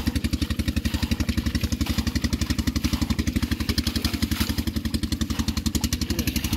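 Engine of a pump draining the pond, running steadily with a fast, even chug.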